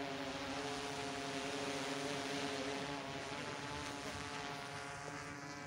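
Propeller-driven aircraft humming steadily, a stack of tones that waver slightly in pitch and ease off a little near the end.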